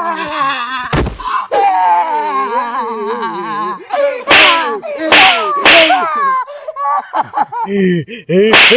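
Wordless yelling, groaning and screaming from a staged struggle, with one sharp slap-like hit about a second in and louder, higher cries around the middle.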